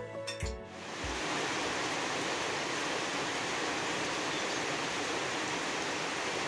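Background music ending within the first second, then heavy rain falling as a steady, even hiss.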